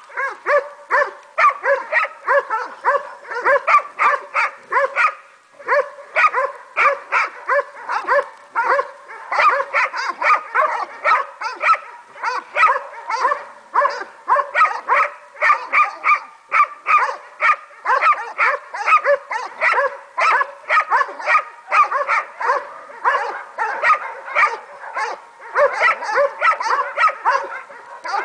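Several hunting hounds baying and barking without pause at a wild boar they are holding at bay. The barks overlap several times a second, with a short lull about five seconds in.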